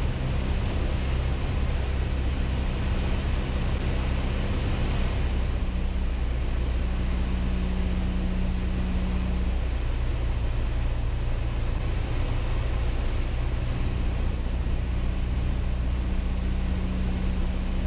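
Piper Cherokee PA-28-180's four-cylinder Lycoming engine and propeller droning steadily, heard inside the cockpit during approach. The low hum shifts in pitch slightly a few times, around a third and around halfway in.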